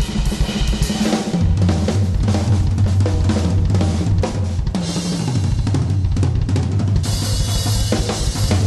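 Rock drum kit played hard and fast, with kick drum, snare and cymbals, over a sustained low bass line.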